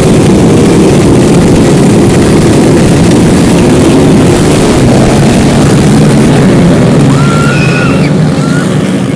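Several small motorcycle engines revving together at a race start line, then accelerating away near the end, the sound easing off as they pull off.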